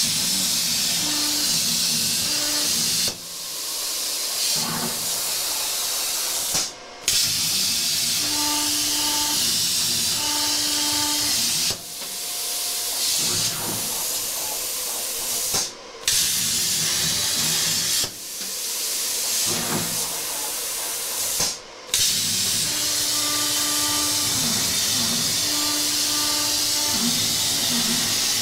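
CNC plasma cutter cutting steel: a loud, steady hiss from the torch's compressed air and arc. It stops briefly and starts again six or so times as the torch moves between cuts.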